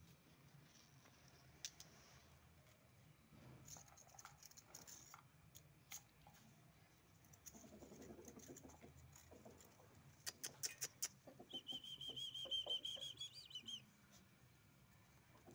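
Mostly quiet: faint scuffles and a few sharp clicks, then a high bird trill of rapid repeated notes lasting about two seconds, ending a little before the close.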